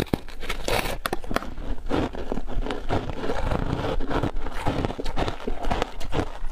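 Biting and crunching through a frozen purple ice block coated in passion fruit pulp, with chewing of the ice, heard as a dense run of irregular crackles and crunches.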